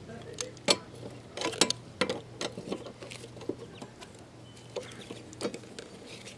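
Irregular light clicks and knocks of small hard objects being handled, about a dozen spread over several seconds, with a steady low hum underneath.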